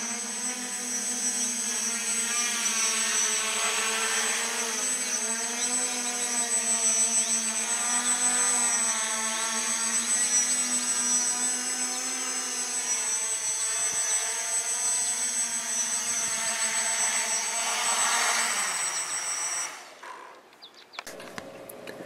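Quadcopter with SunnySky 2212 980 kV brushless motors and HQProp carbon-mix propellers in flight, a steady buzzing hum whose pitch wavers up and down as the motor speeds change, with a thin high whine above it. The hum cuts off abruptly about two seconds before the end.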